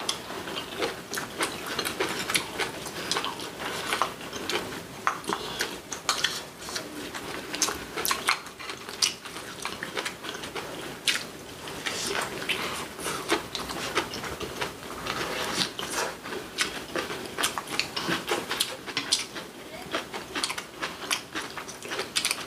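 Close-miked chewing of braised kimchi with rice: a steady run of crisp crunches and wet mouth clicks, the cooked napa cabbage still crunchy.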